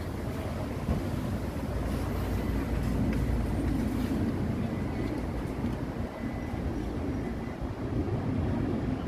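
Daegu Metro Line 3 monorail train running: a steady low rumble, with a faint thin whine through the middle.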